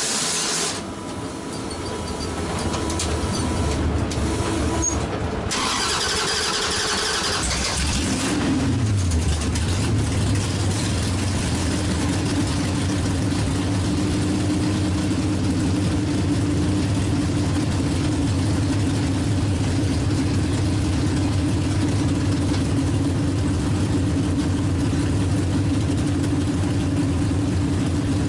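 Drag race car's engine and wind noise heard from inside the cabin as the car slows after a quarter-mile pass. About eight seconds in, the revs fall and the engine settles into a steady idle as the car rolls slowly.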